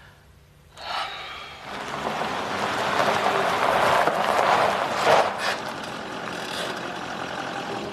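A motor vehicle passing: road noise swells after about a second, is loudest around four to five seconds in, then settles into a steadier rush.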